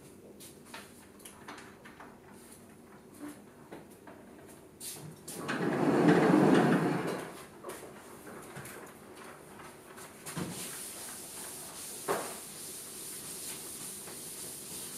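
Lecture-hall sliding chalkboard panels being pushed along their tracks, one loud slide of about two seconds near the middle, with small knocks before it. Afterwards a wide board eraser is wiped across the chalkboard, a steady hiss with a sharp knock.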